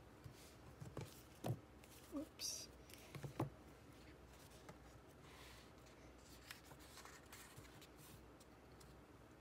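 Light handling of a paperback photo book: a few soft taps and paper rustles in the first few seconds as the cover is lifted and the book opened, then near quiet.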